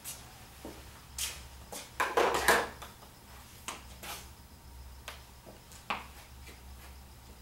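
Footsteps, shuffling and a few light clicks and taps as a golfer steps up and settles a club over a hitting mat, loudest about two seconds in, with a steady low hum underneath.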